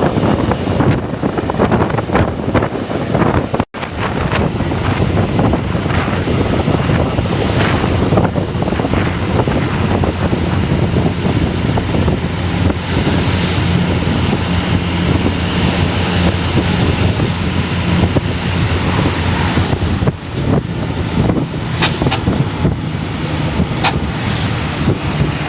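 Bus engines running as the convoy drives, with a steady low drone and heavy wind buffeting the microphone.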